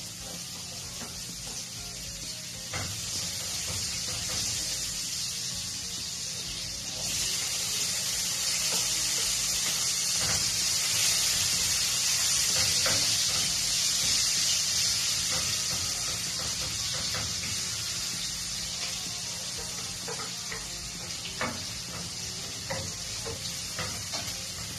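Chopped onion, tomato and green bell pepper sizzling in oil and butter in a frying pan. The sizzle grows louder about seven seconds in, then eases off gradually. A wooden spatula clicks against the pan as the vegetables are stirred, more often near the end.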